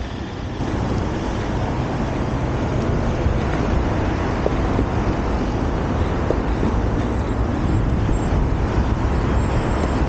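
Steady rumble of an electric skateboard rolling over asphalt, with a low hum and wind buffeting the microphone.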